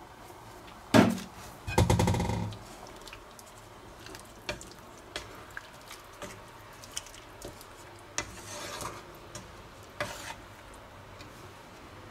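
A sharp knock, then a short rattle as a spice jar is shaken over the pan. A wooden spatula then stirs a thick curry sauce in the pan, with scattered light knocks and a brief scrape.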